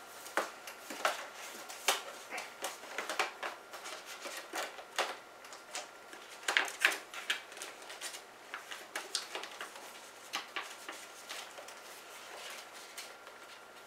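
Paper cover sleeve rustling and a plastic disc case clicking and rattling as they are handled, the cover slid out, turned over and slid back in: a string of irregular sharp clicks and crinkles.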